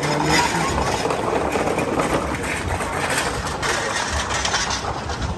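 Busy city street noise: an engine running, mixed with the voices of passers-by.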